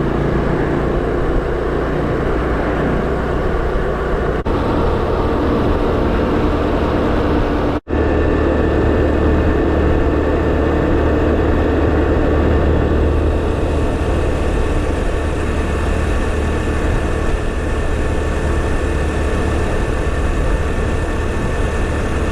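Honda Super Cub's single-cylinder four-stroke engine running steadily on the move. The sound cuts out for an instant about eight seconds in, then carries on.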